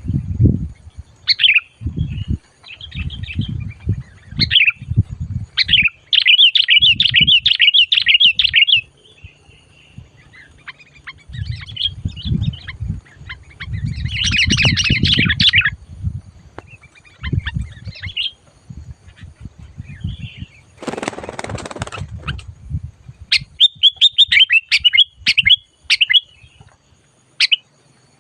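A songbird calling in bursts of fast, rapid-fire chattering notes, excited and nonstop. Low thumps sound in between, and there is a short hiss about three-quarters of the way through.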